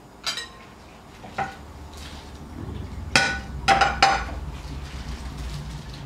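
A ceramic plate knocking and clinking against a wooden cutting board as it presses flatbread dough and is lifted off: about five sharp clinks, each ringing briefly, the loudest three between about three and four seconds in.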